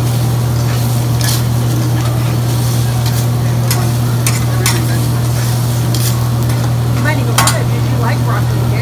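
Metal spatulas scraping and tapping on a steel teppanyaki griddle as a hibachi chef stir-fries vegetables that sizzle, in a string of sharp scrapes and clicks. A steady low hum runs underneath and is the loudest thing.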